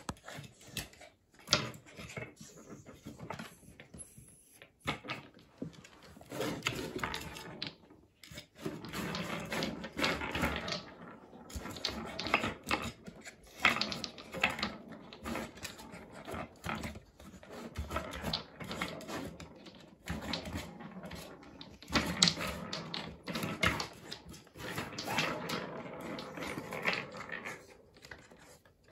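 Wooden balls rolling and rattling around the tracks of a wooden three-tier cat ball-track toy as a dog noses and paws at it, in repeated runs of a second or two with clicks and knocks between.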